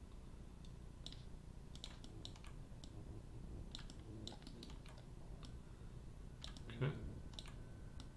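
Sparse, irregular light clicks of a computer mouse and keyboard over a faint low hum.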